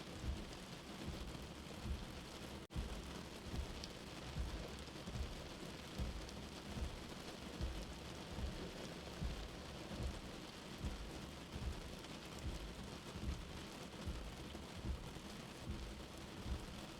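Steady rain heard as if from inside a car or shelter, with a soft, slow heartbeat thumping about every three-quarters of a second underneath. The sound cuts out for an instant a few seconds in.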